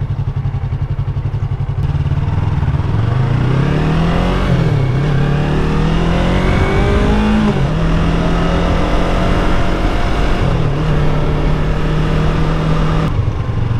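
Yamaha R3's parallel-twin engine accelerating. Its pitch climbs in steps with brief dips at the gear changes, then holds steady and drops near the end as the throttle eases. Wind rushes across the helmet-mounted microphone while the bike is moving.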